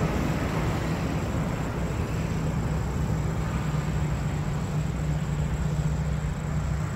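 Steady low vehicle rumble with a constant hum, mixed with wind noise on the microphone.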